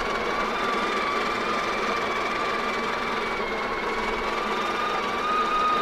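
Built-in conical burr grinder of a Breville Barista Express espresso machine running steadily, a motor whirr with a steady whine, grinding coffee beans for a single dose.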